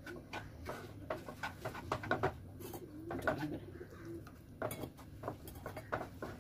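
Wooden spatula scraping and knocking against a nonstick pan as rice flour is stirred, a run of short irregular scrapes and clicks. A bird coos low in the background about three to four seconds in.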